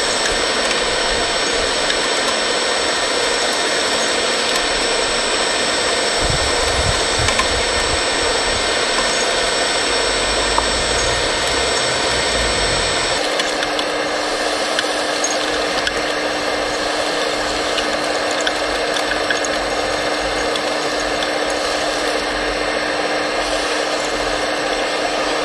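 Suction blower of an RC model suction excavator truck running steadily, a whine over a hiss, as its suction pipe draws up spilled soil. The mix of tones shifts about halfway through.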